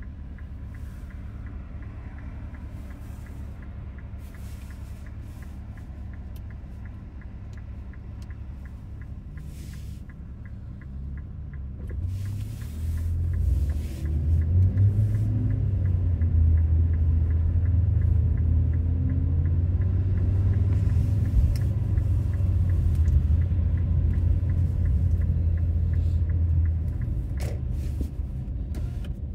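2018 Infiniti Q50 Red Sport 400's 3.0-litre twin-turbo V6 heard from inside the cabin. A low steady hum with a regular faint ticking while the car waits, then about halfway through the engine pulls away under load. Its drone is loud and rises in pitch for a dozen seconds before easing off near the end.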